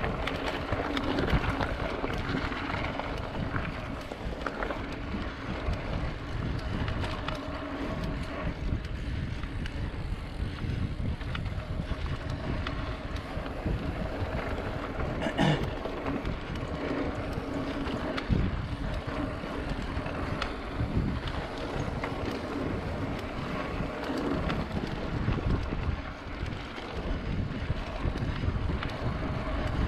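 Mountain bike being ridden along a dirt trail: wind on the microphone and steady rumble from the tyres and frame, with frequent small rattles and knocks from the bumpy ground.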